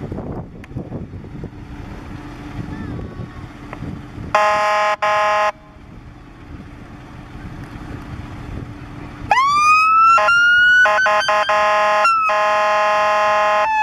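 Dennis Sabre fire engine's bullhorn giving two short blasts, then its siren winding up into a rising wail. More bullhorn blasts cut across the siren, and a long blast runs over it near the end, where the siren pitch starts to fall. The engine idles underneath.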